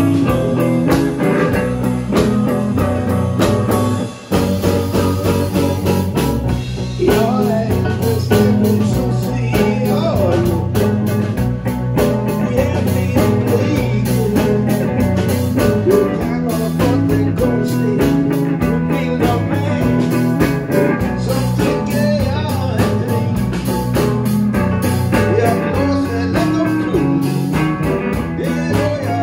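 Live blues band playing: electric guitars and a drum kit, with a man singing into a handheld microphone. The band stops for a split second about four seconds in, then plays on.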